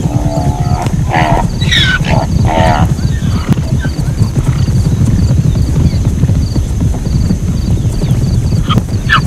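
Zebra calling: a run of short, pitched calls in the first three seconds, and another call starting near the end, over a steady low rumble.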